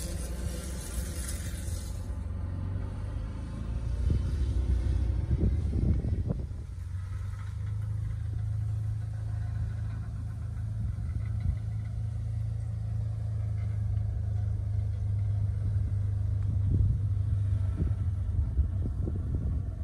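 Can-Am Commander side-by-side running at a steady pace as it drives along the road, heard at a distance as a low, even engine rumble.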